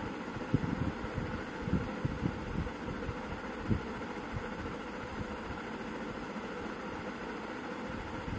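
Handling noise: a few soft, low thumps in the first four seconds as hands work beaded thread on a bangle over a cloth-covered surface, over a steady background hiss.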